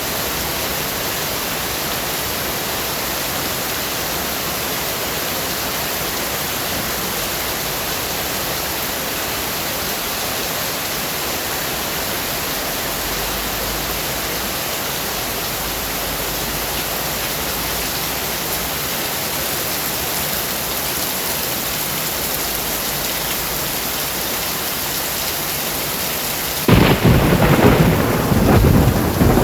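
Steady rain hiss, then a sudden loud thunderclap near the end that goes on rumbling.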